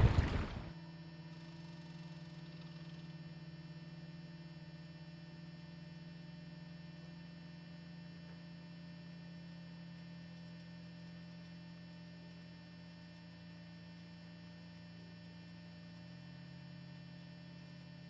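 Steady electrical hum made of several even, unchanging tones. It follows wind noise on the microphone that cuts off suddenly in the first second.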